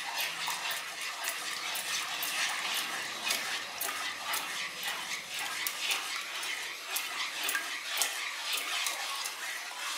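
Slotted wooden spatula stirring a runny rice-flour and cold-milk batter round a coated pan, a steady swishing of liquid broken by many small scrapes and taps of wood on the pan.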